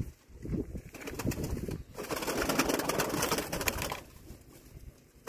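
Domestic tumbler pigeons cooing in a loft, with a louder hiss-like burst of noise from about two to four seconds in.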